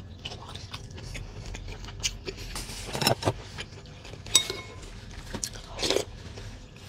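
Close-up eating sounds: chewing and small clicks of utensils, with a metal spoon clinking against a glass bowl a few times, one clink ringing briefly.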